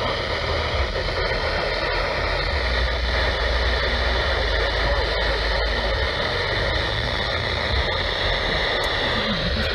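Steady radio static: an even hiss with faint steady whistles from a radio receiver tuned to a weak or empty signal.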